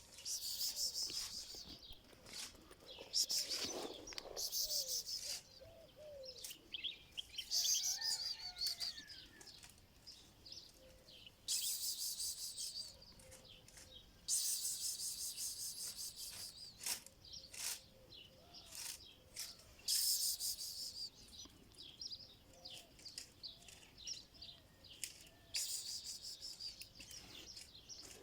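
Small birds chirping, in repeated high, rapid trills of a second or two each, with shorter chirps in between.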